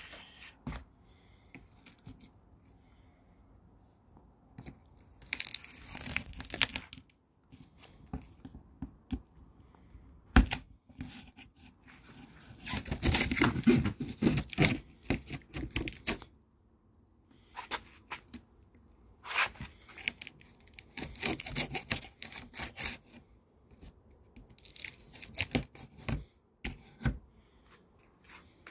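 Packing tape and cardboard on a toilet's shipping carton being torn and scraped open in several rough bursts with pauses between, the longest about halfway through. There is a single sharp knock shortly before it.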